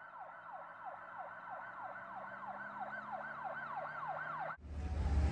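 A siren sounding in rapid falling sweeps, about three a second, slowly growing louder. About four and a half seconds in it cuts off abruptly and a low rumble takes over.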